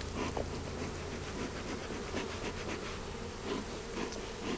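Many honeybees buzzing around an opened beehive, a steady hum with individual bees flying close by and their pitch rising and falling as they pass. A few brief clicks are mixed in.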